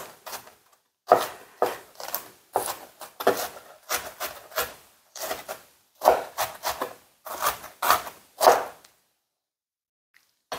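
Chef's knife finely chopping onion on a plastic cutting board: a quick, irregular run of knife strikes against the board, in short clusters, stopping shortly before the end.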